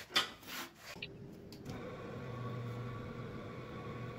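A few light clatters of sheet steel being handled, then from about two seconds in a steady electric motor hum from a powered bead roller running as it rolls strengthening beads into the sheet-metal floor patch panel.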